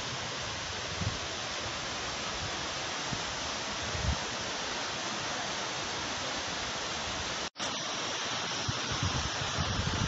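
Steady rushing of water from Munising Falls. The sound drops out for an instant about seven and a half seconds in.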